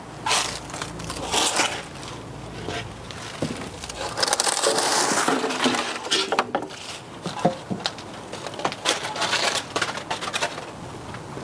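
Rummaging through a pile of plastic planters among dry leaves: leaves crackling and rustling, with scattered knocks and clatter of pots and window boxes being pulled out. The rustling is densest about four to six seconds in.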